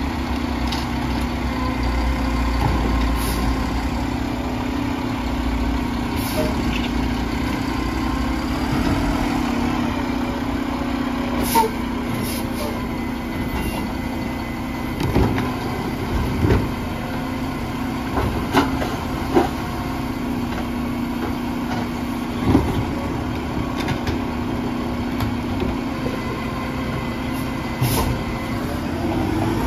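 Mack LR garbage truck's engine running steadily while it stands with its Labrie side-loader body and Rotac cart tipper working, broken by several sharp clunks and bangs of carts and the tipper against the body.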